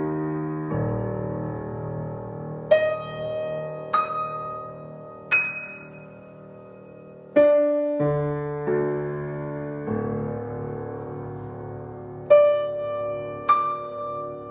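A c.1982 Steinway Model L grand piano played slowly: chords and single high notes are struck one after another over sustained bass notes, each left to ring and fade.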